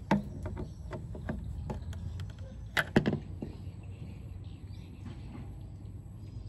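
Sharp clicks and knocks from screwdriver work on a cassette deck's metal cabinet, the two loudest about three seconds in, over a low steady hum.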